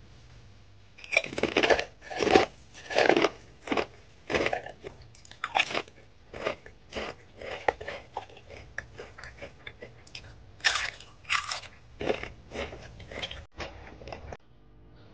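Pringles potato crisps being bitten and chewed close to the microphone: loud crisp crunches in a cluster about a second in and again around two-thirds through, with quicker, softer chewing crunches between, stopping shortly before the end.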